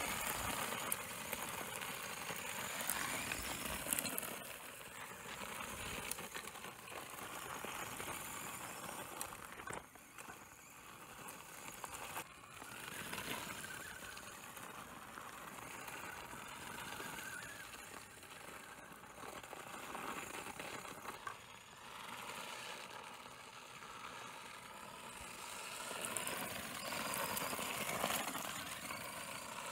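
Prototype RC car driving over gravel, its drive motor whining up and down with the throttle over a rattle and scatter of clicks from the loose stones under its tyres.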